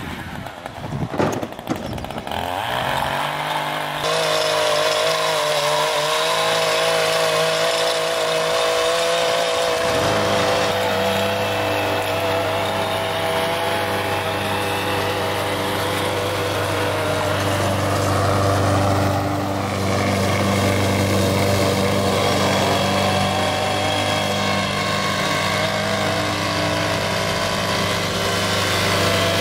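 Gas walk-behind push mower pull-started about two seconds in and running steadily. A second small two-stroke engine, a string trimmer, joins soon after and runs along with it.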